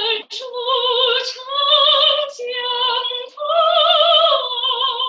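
Soprano voice singing a slow Chinese song unaccompanied, in sung phrases with a wide vibrato and short breaks between them.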